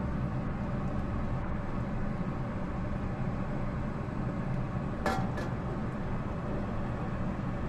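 Pot of beef soup boiling on the stove, a steady low rumble, with one short clink about five seconds in.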